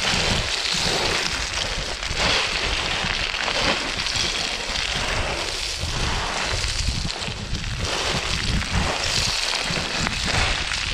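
A trail runner's footsteps crunching on loose rock and gravel in an irregular stride, with wind rumbling on the microphone.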